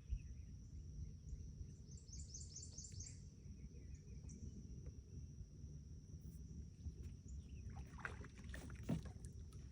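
Quiet outdoor ambience with a low rumble and a steady high insect drone. About two seconds in there is a short run of about seven quick chirps, and a few sharp knocks come near the end.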